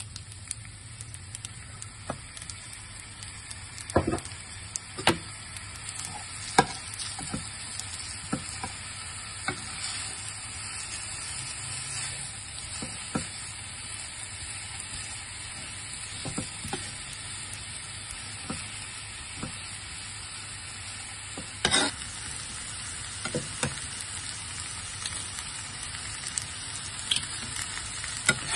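Fried rice sizzling in a nonstick frying pan while it is stirred and tossed with a slotted spatula, the spatula knocking and scraping against the pan at irregular intervals. One louder clatter comes about three quarters of the way through.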